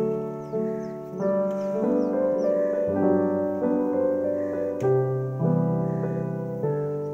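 Background music: a gentle keyboard tune of sustained notes and chords that change about every half second.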